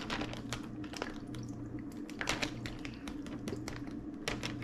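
Irregular light taps and clicks as a glass Tabasco bottle is shaken upside down over an open plastic zip-top bag, the sauce spattering into the bag.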